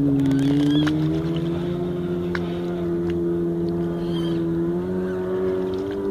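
Distant jet ski engines running at speed across the lake: a steady, high-pitched engine drone that rises slightly about a second in and then holds.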